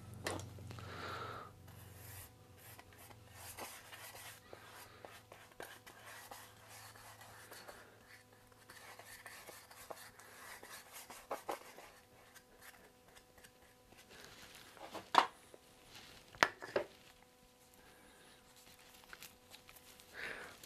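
Faint scratchy rubbing of a glue brush spreading wood glue over a thin plywood strip, followed by a few sharp wooden knocks about two-thirds of the way through as plywood pieces are handled and set down on the bench.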